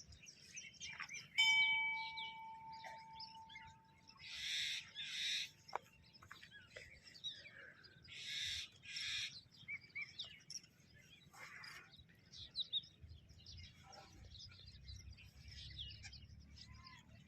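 Birds chirping and calling, with a harsh two-part call heard twice. A steady high tone starts about a second in and holds for a few seconds.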